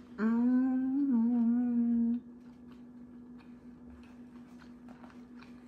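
A woman hums a closed-mouth "mmm" of enjoyment while eating, held for about two seconds with a slight waver in pitch. Faint chewing and mouth clicks follow.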